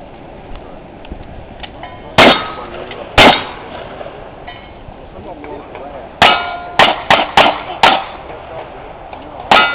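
Gunshots hitting steel targets, each crack followed by the ring of the struck steel: two shots about a second apart, a pause of three seconds, then five quick shots in under two seconds and one more near the end.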